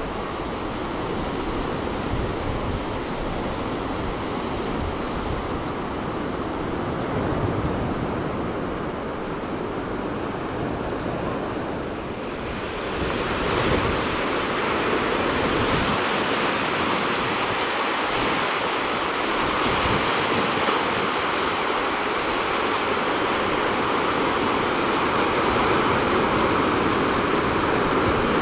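Ocean surf breaking on a rocky shore, a steady wash of water noise, with wind rumbling on the microphone. About halfway through the low wind rumble drops away and the hiss of the surf grows louder and brighter.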